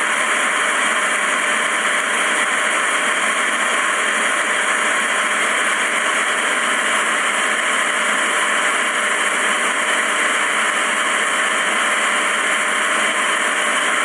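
Steady, even rushing hiss of an airliner cockpit's background air noise, unchanging throughout.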